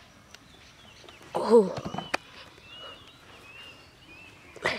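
A short, loud call about a second and a half in, followed by birds chirping repeatedly, with a few sharp clicks.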